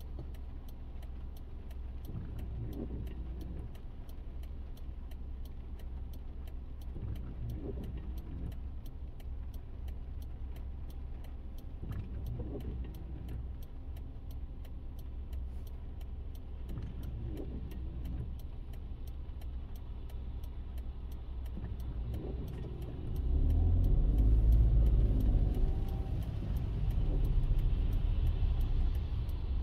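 A car driving on a wet road, heard from inside: a steady low road and engine rumble, with a soft sweep repeating about every five seconds. About three-quarters of the way in the deep rumble turns clearly louder and stays up.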